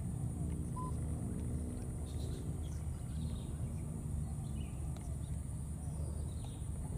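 Outdoor ambience: a steady low rumble with a constant faint high hiss, and a few faint short high chirps here and there.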